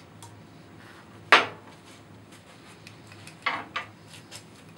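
Metal tools and engine parts clinking as they are handled and set down: one sharp clank about a second in, then two quicker knocks past the middle, with light clicks between.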